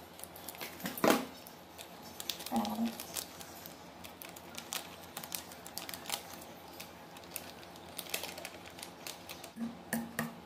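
A plastic wet-food pouch crinkling as it is handled and squeezed, and a spoon clicking against a steel bowl as food is mixed: a run of light irregular clicks and rustles, with one louder knock about a second in.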